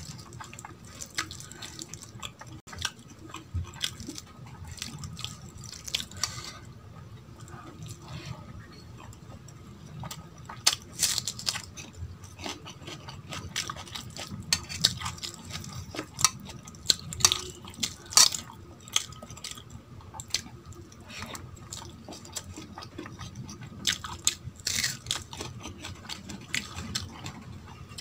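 A hand squishing rice and dal together on a steel plate, wet and sticky, with sharp clicks of fingers and food against the metal that come in bunches through the middle and again near the end, mixed with chewing.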